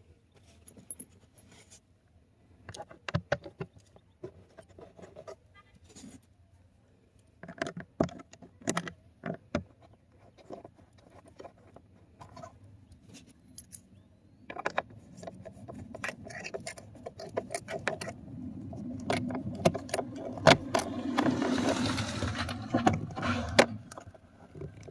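Small sharp clicks and taps of screws and tools being handled while the screws holding the cabin-filter cover are put back in. In the last third, a denser, louder run of scraping and rattling.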